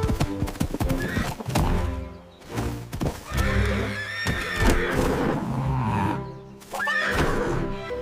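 Horse whinnying several times over background music, with a few sharp knocks in the first second.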